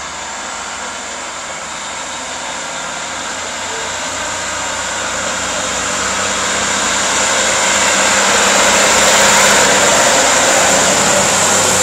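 Class 156 Super Sprinter diesel multiple unit pulling away from the platform, its underfloor Cummins six-cylinder diesel engines growing steadily louder as it accelerates and its cars pass close by. A steady high whine rides over the engine noise, strongest near the end.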